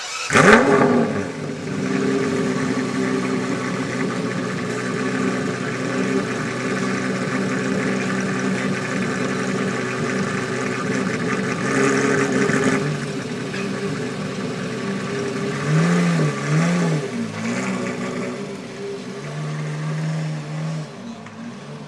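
Aston Martin One-77's 7.3-litre V12 firing up with a loud flare, then settling into a steady idle. Brief revs come partway through, including two quick blips, and the sound fades near the end as the car pulls away.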